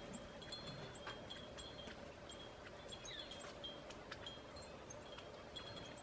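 Wind chimes tinkling in light, short high notes, over and over. A bird's short falling call sounds about three seconds in.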